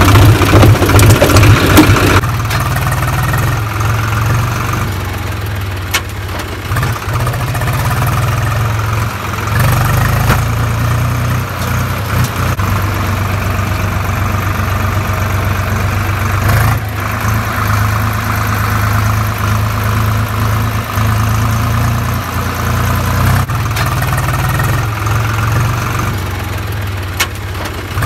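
Tractor's diesel engine running just after being started: louder for the first two seconds, then settling into a steady low hum.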